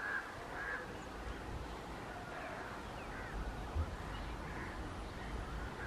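Birds calling in short calls every second or so over a low steady rumble from a distant approaching electric-hauled passenger train.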